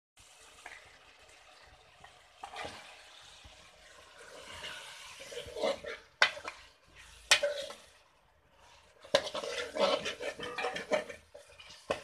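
Chicken frying with a low sizzle in a steel kadai. A spatula then scrapes and clinks against the pan in quick strokes as the chicken is stirred into the masala, with two sharp clinks near the middle.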